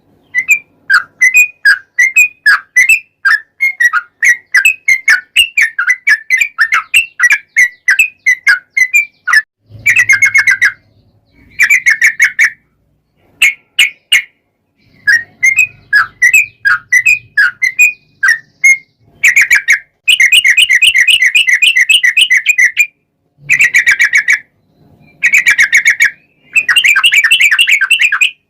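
Yellow-vented bulbul (trucukan) singing in fast chirping phrases that run into long, rapid rolling trills, the 'ropel panjang' song used as a lure to set another bulbul singing.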